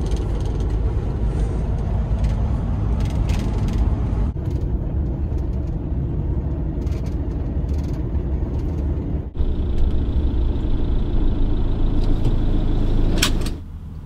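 Fiat Ducato camper van driving on an open road, heard from inside the cab: steady engine rumble and tyre road noise. A brief sharp sound comes near the end.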